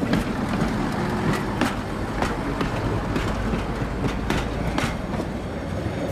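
Narrow-gauge diesel railbus rolling slowly past at close range and moving away: a steady low engine rumble, with the wheels clicking over rail joints at irregular intervals, one or two a second.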